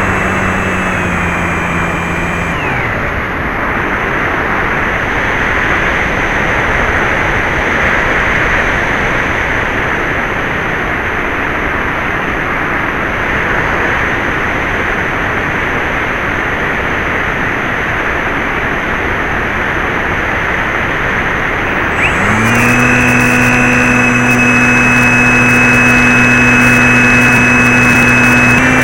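A radio-controlled model plane's motor winds down in the first couple of seconds, as in a throttled-back glide. A steady rushing hiss then fills the stretch until about 22 s in. The motor then spins back up quickly and runs at a steady, even pitch to the end.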